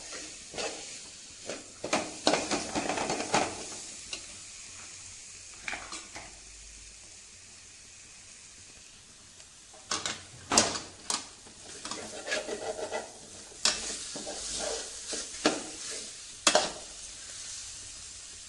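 A metal spoon stirring and scraping garlic, green chillies and curry leaves frying in a metal pan over a low flame, with a steady sizzle. Sharp clicks and taps of the spoon against the pan come in clusters, with a quieter stretch of sizzling alone in the middle.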